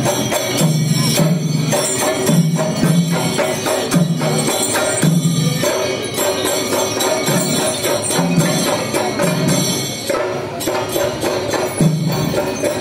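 Loud festival percussion music: rapid metallic clashing of small hand cymbals over drumming, with a low tone sounding in short repeated spurts.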